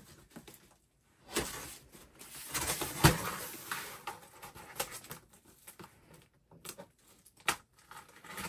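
Blue painter's tape being torn off a cardboard box and the box's cardboard flaps pulled open: irregular bursts of ripping and rustling with scattered knocks, loudest about three seconds in.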